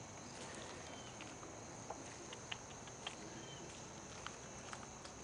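Faint, scattered light crackles of footsteps on dry leaves and twigs, a few separate ticks a second or so apart, over a steady faint high-pitched background hum.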